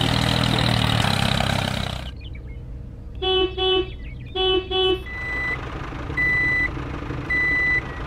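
Truck sound effects: an engine running that cuts off about two seconds in, then a horn honking twice in two quick pairs, then a reversing beeper sounding steady beeps about once a second.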